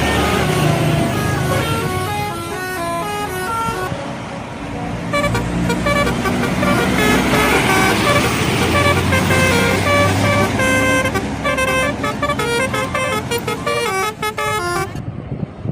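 Indonesian bus telolet horn playing tunes of short stepped notes, several pitches sounding together, over the low rumble of a bus engine. The notes pause briefly about four seconds in, then run on in quicker, denser runs.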